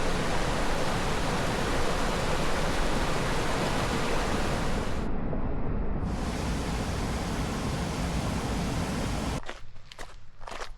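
Rushing water, a steady loud roar of noise from deep rumble up to hiss, with a brief dip in the hiss about halfway through.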